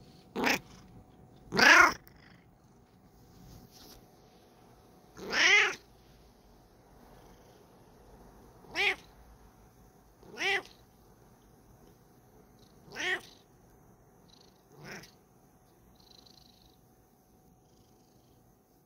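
Bengal cat meowing repeatedly: about seven separate meows a second to a few seconds apart, each call bending up and down in pitch. The second and fourth meows are the loudest and longest, and the last is faint.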